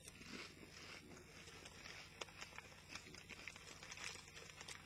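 Faint crunching of Walkers potato crisps being chewed, a scatter of small crackles.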